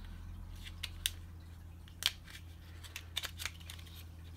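Scattered sharp plastic clicks and small snaps as the plastic housing of a butane BBQ lighter is pried apart by hand, the strongest about one and two seconds in and a quick run of clicks past three seconds.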